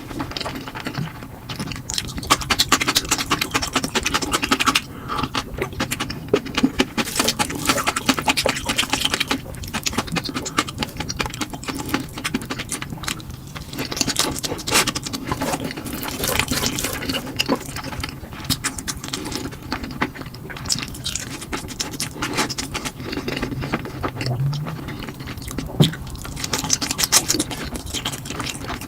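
Close-miked eating of spicy fire noodles: wet chewing, smacking and slurping, a dense run of small clicks and squelches.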